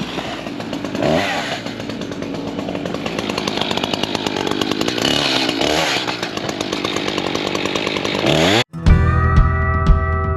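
Chainsaw running hard, its engine pitch rising and falling as it cuts. Near the end it cuts off abruptly and music with steady drum beats takes over.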